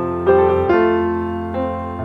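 Background piano music: slow, sustained keyboard notes with a new note or chord struck about every half second to a second.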